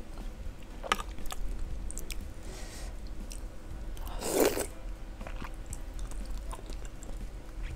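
Close-up mouth sounds of a person eating instant noodle soup and soft fried egg from a spoon: wet chewing with small clicks, and one louder wet mouthful about four and a half seconds in.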